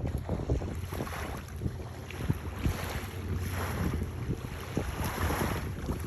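Wind buffeting the microphone in gusts over a steady low rumble, with scattered light knocks.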